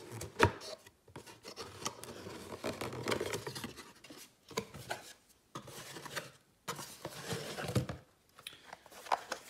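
Cardboard box being opened by hand: flaps pulled open and folded back, with irregular rubbing, scraping and clicks of cardboard and packaging, and a sharp snap about half a second in.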